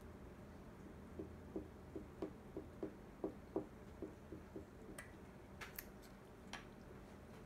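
A run of about a dozen light, dull taps, roughly three a second, then a few sharper clicks: the ant test tube being tapped to shake reluctant ants out into the gel ant farm.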